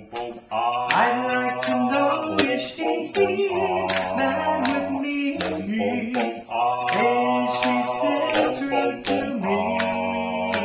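Two men singing a cappella doo-wop harmony on wordless syllables, a bass voice holding low notes under a higher sung line, with finger snaps clicking along with the beat.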